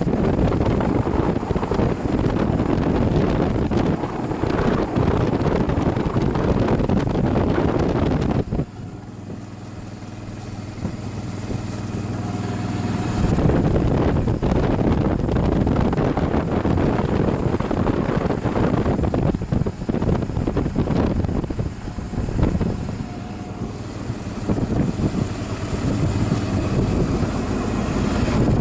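Suzuki V-Strom motorcycle riding along, with its V-twin engine running under steady wind rush on the microphone. About nine seconds in the wind noise drops away for a few seconds, leaving the engine's low, even hum, then the wind rush comes back.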